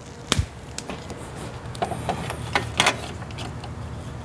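Vinyl electrical tape being pulled off the roll and wrapped around split loom over wiring: a sharp click about a third of a second in, then a cluster of short crackles and clicks around two to three seconds in.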